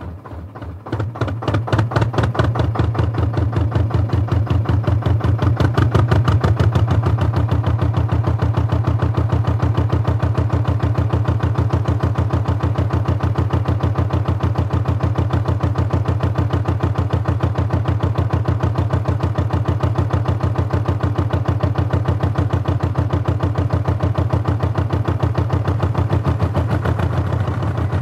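Canal narrowboat's diesel engine heard on board, running with a rapid, even beat. It builds up over the first two seconds, then holds steady.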